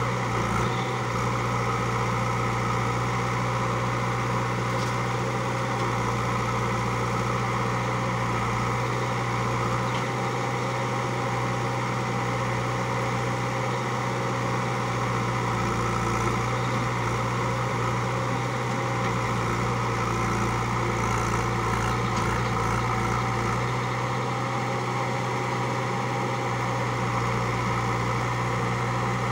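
JCB 3DX backhoe loader's diesel engine running steadily with a constant low hum while the backhoe loads soil into a tipper truck.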